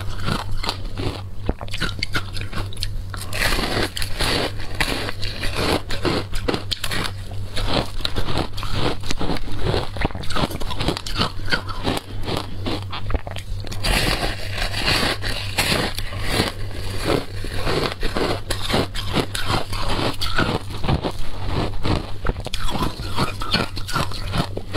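Close-up crunching of a block of packed shaved ice soaked in passion fruit juice, bitten off and chewed in many rapid crunches, over a steady low hum.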